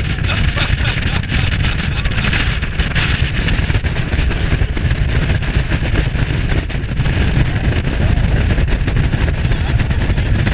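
Speedboat running fast over open sea: steady engine noise and rushing water, with heavy wind buffeting the microphone.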